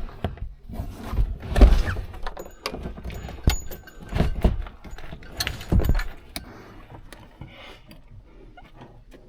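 Knocks, thunks and rattling of interior parts being handled and fitted into a truck cab, with several sharp knocks in the first six seconds, then quieter.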